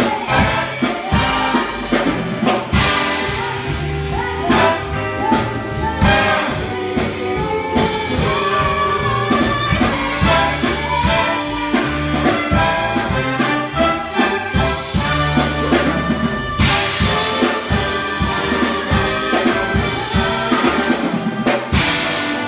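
Live big band playing an up-tempo swing jazz tune, with trumpets, trombones and saxophones over upright bass and drums.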